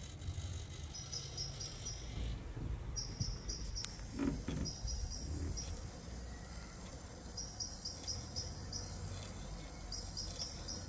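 Outdoor ambience: high-pitched chirps in quick short trills, repeating every second or two over a steady low rumble, with a brief knock about four seconds in.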